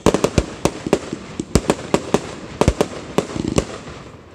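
Fireworks going off: a rapid, irregular string of sharp bangs and cracks that thins out and fades near the end.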